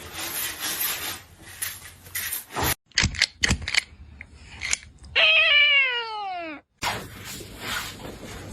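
A cat gives one long, loud meow that slides steadily down in pitch, about five seconds in, after a few sharp clicks.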